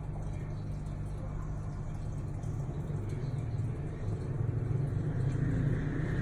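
A steady low mechanical hum, growing a little louder about four seconds in.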